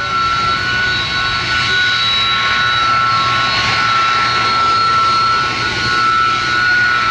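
USAF KC-10 Extender's General Electric CF6 turbofans running at taxi power: a steady jet whine, several high held tones over a rushing noise.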